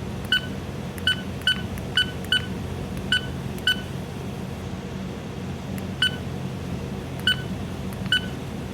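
Short single beeps from a bridge navigational watch alarm system (BNWAS) control panel as its buttons are pressed: about ten beeps, unevenly spaced and bunched in the first four seconds. A steady low hum runs underneath.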